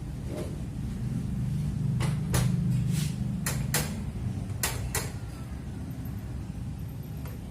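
A series of short sharp clicks and knocks, about eight, from metal parts and tools being handled on a drink cup-sealing machine under repair, over a steady low hum that swells for a couple of seconds in the middle.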